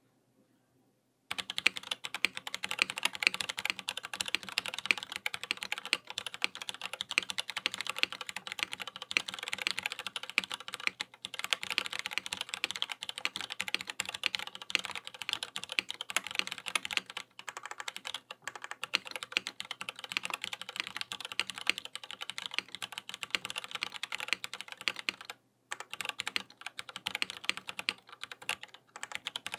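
Typing on a Matrix Falcon mechanical keyboard with stock Cherry MX2A Brown tactile switches, an aluminium case and Keykobo Miami Dawn keycaps. A dense, fast stream of key clacks begins about a second in and goes on with only a few brief pauses.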